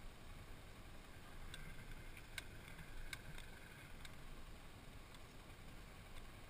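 An ATV's engine idling quietly with a low rumble. A few light clicks fall in the first four seconds.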